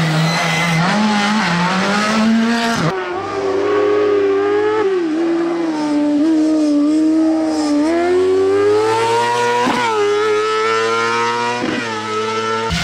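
Rally car engine revving hard near full throttle, its pitch climbing and dropping sharply at each gear change. The sound switches abruptly about three seconds in to another car revving through the gears the same way.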